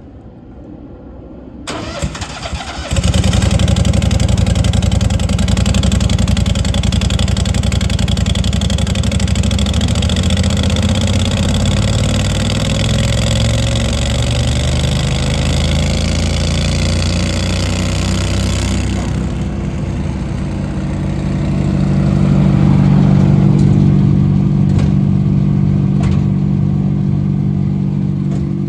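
Gasoline engine of a Morbark tow-behind wood chipper cranking briefly and catching about three seconds in, then running steadily. About two-thirds of the way through, the higher-pitched noise drops away and the engine settles into a lower, steadier note.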